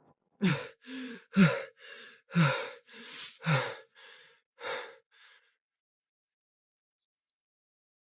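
A person breathing hard and shakily: about five heavy voiced exhalations, each starting with a short falling pitch, with quieter breaths between them, dying away about five seconds in.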